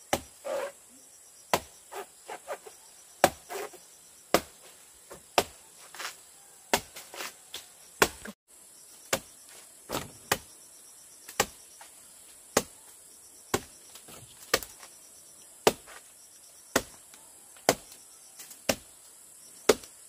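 Chopping with a knife: sharp strikes, irregular at first, then settling to about one a second. A steady high buzz of insects runs underneath.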